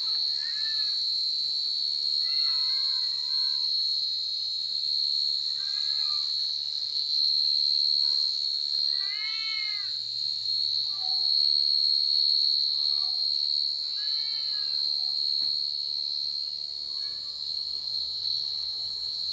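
Steady high-pitched drone of night insects, with short rising-and-falling animal calls every few seconds, the loudest two about halfway through and near three quarters of the way.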